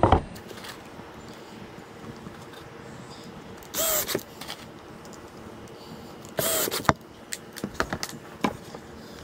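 Cordless drill run in two short bursts into plywood, each one spinning up quickly and running for about half a second. A few light knocks follow near the end as plywood pieces are handled.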